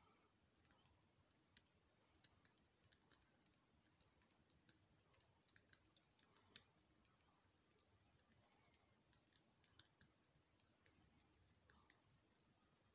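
Faint, irregular clicking of a four-wheel combination padlock's dials being turned one number at a time while the shackle is held under pressure, stepping through combinations to find the one that opens it.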